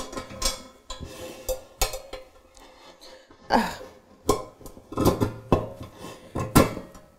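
Bent stainless steel wire handles clicking and knocking against a stainless steel chafing dish frame as they are hooked into its rim. It is an irregular run of about a dozen sharp metal clinks with short ringing.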